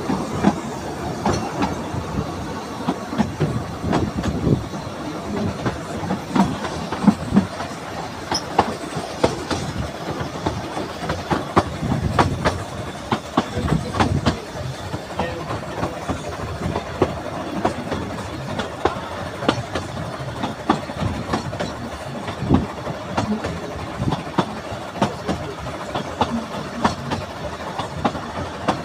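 Narrow gauge steam train under way, heard from inside a carriage: the coach runs with a steady rumble while its wheels click and knock irregularly over the rail joints.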